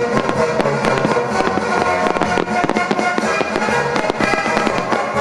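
Fireworks bursting in many quick bangs and crackles, several a second, over loud music with held tones.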